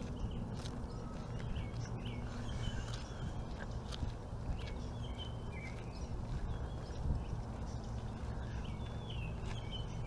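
Small songbirds chirping in short, quick notes over a steady low rumble of background noise.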